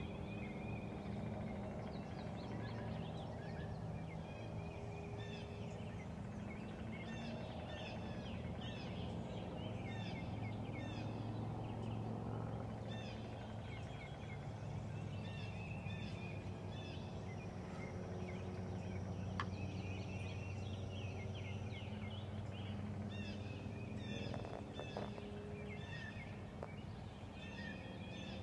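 Wild turkey gobbling, with many songbirds chirping around it over a steady low background hum.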